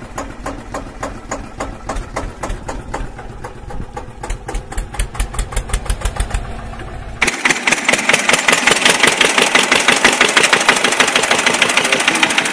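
A tractor engine sound effect chugging at a steady beat for about seven seconds, then abruptly switching to a louder, higher and faster engine note, as if under load.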